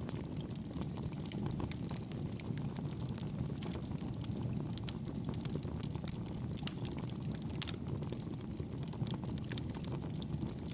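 Fire burning in a fireplace: a steady low rush of flames with frequent small crackles and pops scattered irregularly throughout.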